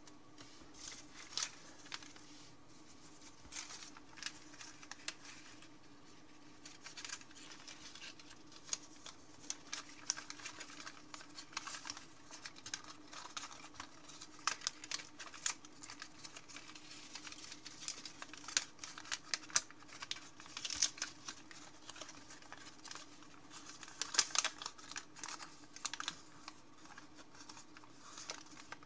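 Thin 50 g origami paper crackling and rustling as hands fold and collapse a pre-creased sheet: many short, irregular crisp crackles, busiest in the middle and latter part. A faint steady hum runs underneath.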